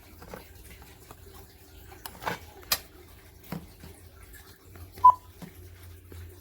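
Scattered clicks and knocks of handling, with one short electronic beep about five seconds in, as from a key press on a cordless phone handset.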